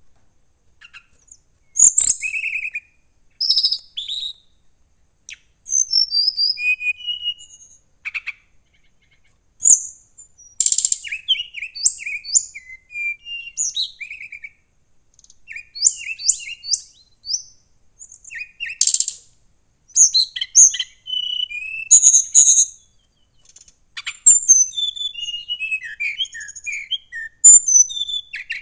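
Caged brown-chested jungle flycatcher (sikatan rimba dada coklat) singing loud, high, rapidly varied phrases of quick trills and sweeping notes, in bursts of a second or two with short pauses between. The keeper presents this full song as the bird challenging a rival.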